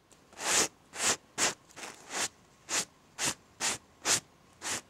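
A brush swept in quick, short strokes over fabric, brushing cut hair off the client's shoulders and gown: about two swishes a second, about ten in all, starting half a second in.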